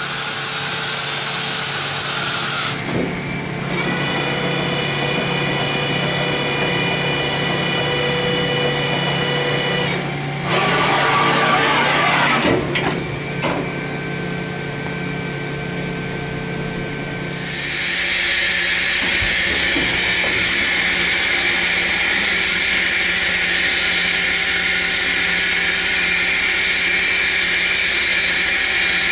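Mori Seiki NT 4300 DCG turning and milling center running: a steady machine whine of several fixed pitched tones through the first half, broken by a short loud burst of hiss near the middle. A little past halfway the whine gives way to a steady hiss that continues to the end.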